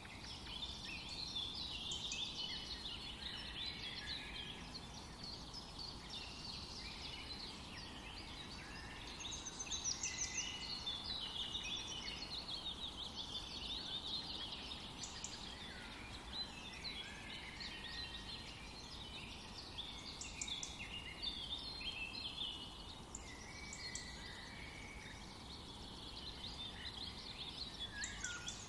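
Birds chirping and twittering in a continuous chorus.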